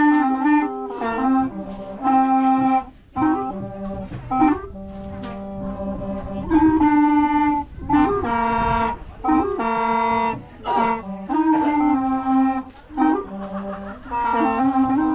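Background music with a wind instrument carrying a melody of held notes.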